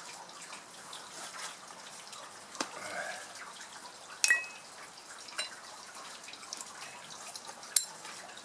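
Light handling taps and clicks of a freshly cast aluminium part turned in gloved hands, with a short metallic ring about four seconds in and a sharp click near the end.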